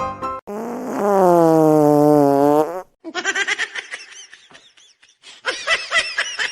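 A loud, drawn-out fart sound about two seconds long, its pitch sinking slightly, cuts in just after a brief tail of piano music. Quick bursts of snickering laughter follow.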